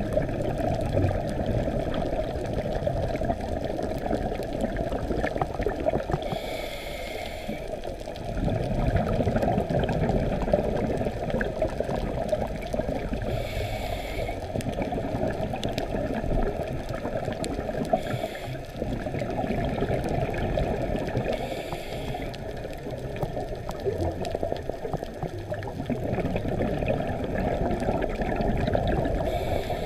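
Scuba diver breathing through a regulator, heard underwater through a camera housing. A short hiss comes on each inhale, five times at uneven gaps of four to eight seconds, and gurgling exhaled bubbles follow, over a steady muffled water noise.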